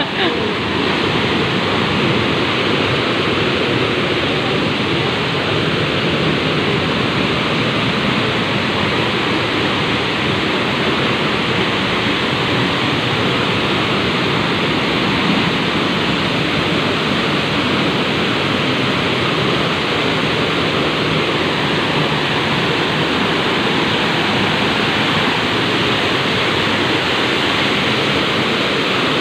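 A tall waterfall's falling water, a loud steady rush heard at close range from the path behind the falls.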